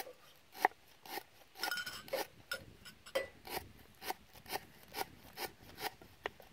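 Knife slicing through stalks on a wooden chopping board, a steady run of short crisp cuts about two a second.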